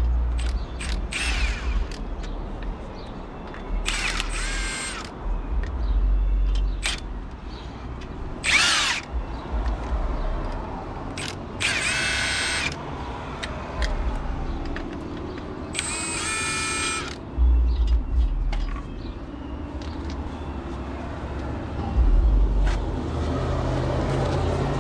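Cordless power tool whirring in five short bursts of about a second each, the whine rising and falling, as wheel lug nuts are spun off. Scattered knocks and clicks from handling tools and parts come between the bursts.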